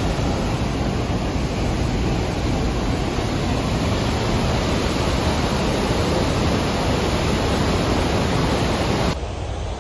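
Athabasca Falls, a large waterfall, pouring with a loud, steady rush of water. The sound cuts off abruptly about nine seconds in.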